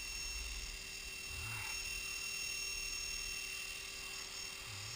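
Blade 450 electric RC helicopter hovering: a steady whine from its motor and rotor, holding one pitch, with low wind rumble on the microphone now and then.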